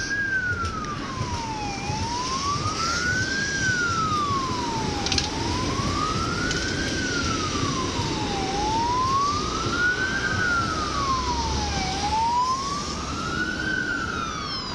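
Emergency vehicle siren in a slow wail, rising and falling about once every three and a half seconds, over a steady rumble of street traffic.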